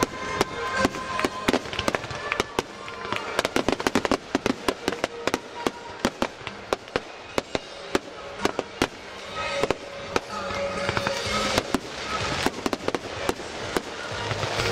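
Fireworks going off in rapid succession: dozens of sharp bangs and crackles, several a second, without a break.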